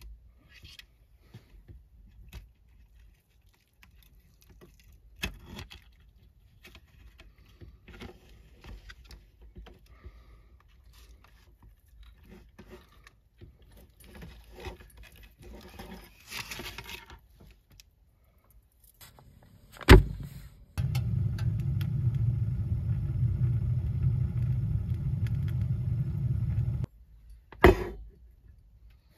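Wire fish-grilling basket clinking and scraping as it is opened and a grilled fish is lifted out, with scattered light clicks. About twenty seconds in, a sharp click, then a loud steady hum for about six seconds that cuts off suddenly, followed by another click.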